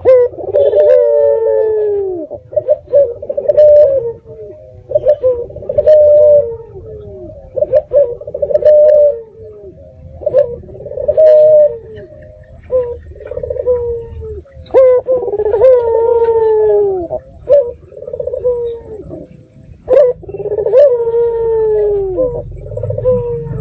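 Puter dove (ringneck dove) with red eyes cooing over and over, each coo ending in a downward-sliding note, one call following another every second or two.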